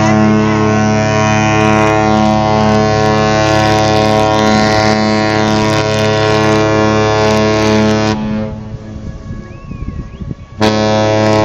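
Cruise ship Celebrity Solstice's horn sounding a long, loud, steady blast as the ship leaves port. The horn cuts off about eight seconds in, and a second blast starts near the end.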